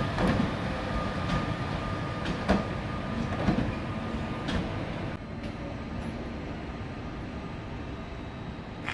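ÖBB Railjet train with a Class 1116 Taurus electric locomotive moving away, its wheels clicking over rail joints about once a second with a faint steady whine. The clicks stop about five seconds in and the rumble fades as the train recedes.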